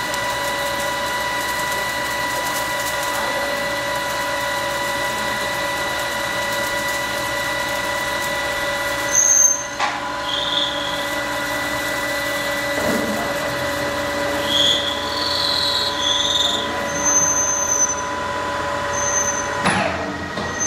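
Manual metal lathe running with a steady gear whine while turning the outside diameter of a steel workpiece. From about nine seconds in the cutting tool gives intermittent high squeals on the spinning work, with a sharp knock just before they start and another near the end.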